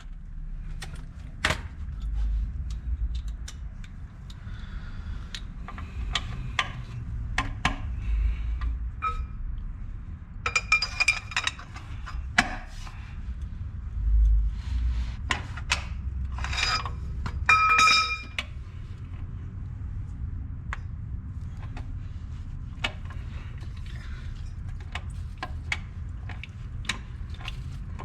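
Metal hand tools clinking and clicking on steel while rusted bolts on a skid steer's track tensioner cover are worked loose, with two bursts of ringing clinks about halfway through and near two-thirds of the way in. A low steady rumble runs underneath.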